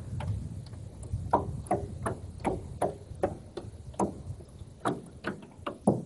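Light, irregular knocks and taps on a small boat on the water, about two or three a second.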